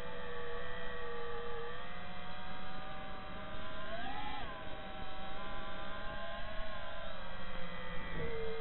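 FPV quadcopter's brushless motors and propellers whining from on board, the pitch drifting up and down with the throttle. The pitch climbs sharply and drops again about four seconds in.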